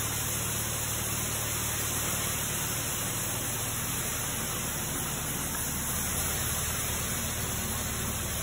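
Barley grain pouring out of a gravity wagon's chute into a plastic bucket: a steady, rain-like hiss, with a low hum underneath.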